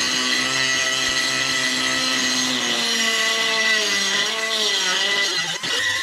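Ingersoll Rand air die grinder running at high speed with a steady whine. From about two and a half seconds in, its pitch sags and wavers as the bit cuts into the steel of the hole.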